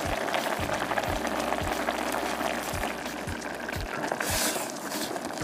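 Spiced coconut broth bubbling at a simmer in a pot as coconut milk is poured in, with a brief louder splash or stir a little after four seconds in. Background music with a steady beat about twice a second runs underneath.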